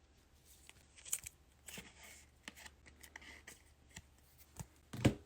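Trading cards and plastic card sleeves being handled: light, scattered rustles and clicks, with a louder knock near the end.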